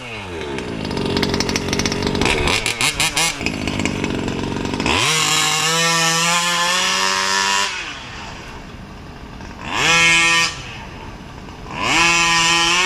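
Losi 5ive-T's small two-stroke gasoline engine running, with the throttle opened three times so its pitch rises: a long rev about five seconds in, a short blip near ten seconds, and another rev near the end. It is really loud.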